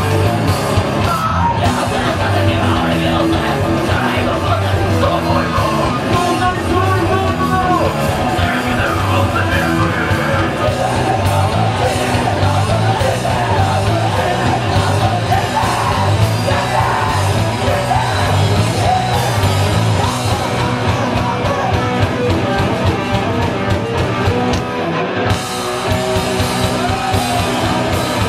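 Live heavy punk-metal band playing loud in a club: distorted guitars, bass and drums, with a vocalist yelling and singing over them.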